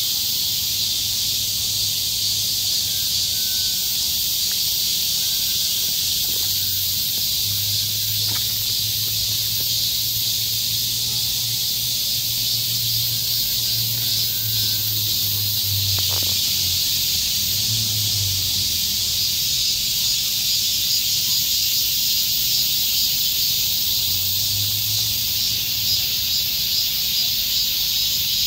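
Steady, high-pitched insect chorus that hisses on without a break.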